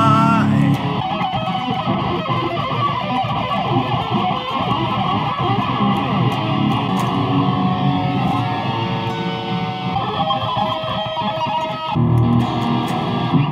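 BC Rich Warlock electric guitar played solo: a held note with vibrato at the start, then fast runs of single notes, going into a heavier held chord about twelve seconds in.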